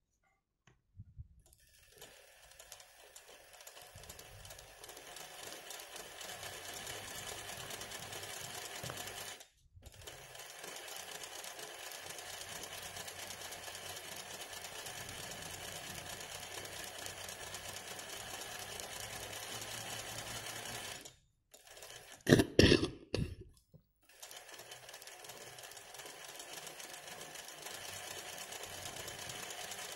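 Sewing machine running steadily as it stitches hand-push (free-motion) embroidery, the fabric in a hoop moved by hand under the needle. The sound cuts out briefly a few times. About two-thirds of the way through, a short burst of loud knocks stands out above it.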